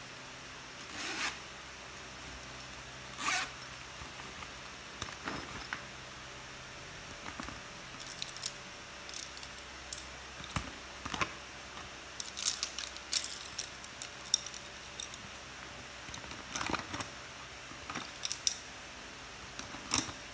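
Coloured pencils and a pencil case being handled: irregular clicks, clatters and scrapes, a few at first, then coming thicker after the first several seconds.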